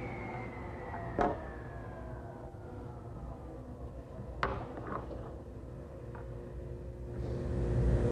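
Table saw blade coasting down after being switched off, its whine falling steadily in pitch and fading over the first few seconds. Two sharp knocks about a second and four and a half seconds in, with a few lighter ones after.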